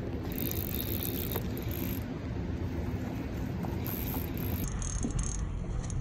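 Steady rushing of fast river water through whitewater rapids.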